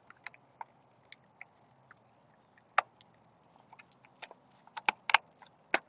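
Clear plastic packaging crinkling and clicking as it is handled and opened by hand, with scattered sharp crackles that come more often in the second half.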